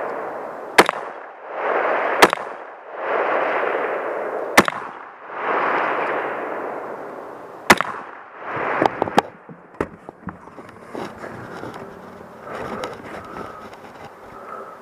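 Rifle shots fired one at a time on a shooting stage: four sharp cracks a second or more apart, each followed by a rushing swell of noise, then a few lighter clicks near the end.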